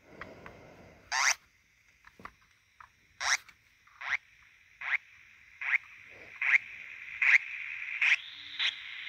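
Korg Monotron Delay analog synthesizer giving short sweeping chirps that repeat a little more than once a second, over a sustained electronic wash that grows steadily louder toward the end. A soft rustle of handling is heard at the start.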